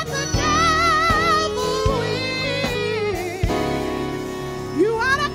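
Gospel music: a solo voice sings sustained, wavering notes with strong vibrato over held keyboard or organ chords and a steady beat.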